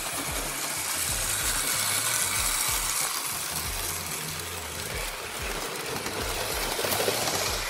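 Early-1950s Lionel 2035 toy steam locomotive running around three-rail O-gauge track: a steady mechanical whir and rattle of its motor and wheels, over a pulsing low rumble.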